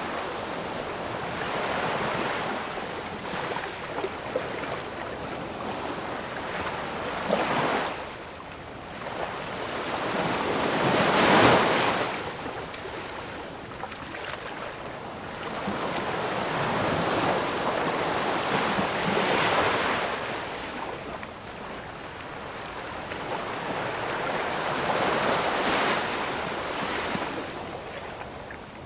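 Ocean waves breaking on a shore, the surf rising and falling in slow swells of several seconds each; the largest wave crashes about eleven seconds in.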